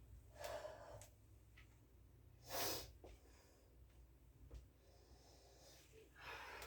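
A woman breathing hard and sniffing through her nose from exertion. There are three short breaths, the sharpest about two and a half seconds in.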